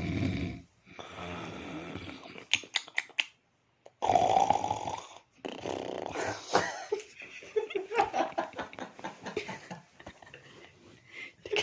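A person snoring: a run of loud, rasping snores one after another, the strongest about four seconds in.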